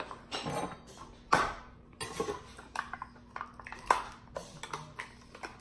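Utensils scraping and clinking in tubs of frosting and against plates: a run of irregular short scrapes and taps, with two sharper clinks, one about a second and a half in and one near four seconds.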